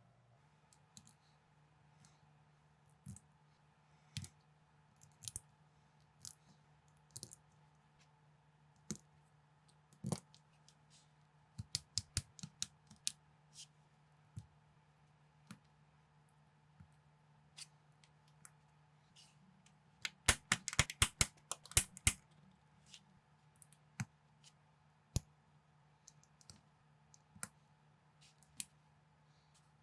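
Plastic LEGO bricks clicking and rattling as pieces are handled and snapped together: scattered sharp clicks with a quick flurry about two-thirds of the way through, over a faint steady low hum.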